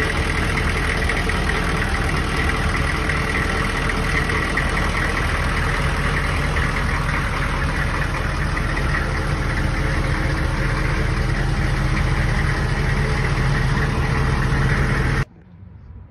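A Hummer H1's diesel V8 idling steadily, heard from beneath the vehicle. The sound cuts off abruptly near the end.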